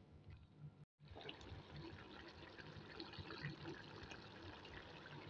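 Faint, wet crackling of hot chicken gravy in an opened pressure cooker, broken by a brief dropout to silence about a second in.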